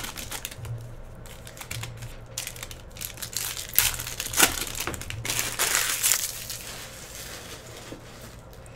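Foil trading-card pack wrapper being torn open and crumpled by hand: an irregular run of crinkling rustles, loudest a little past the middle, dying away near the end.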